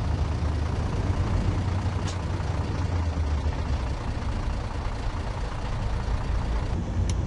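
Detroit Diesel DD15 inline-six diesel in a Peterbilt semi truck running steadily on the road at light load: a low, even drone mixed with road noise.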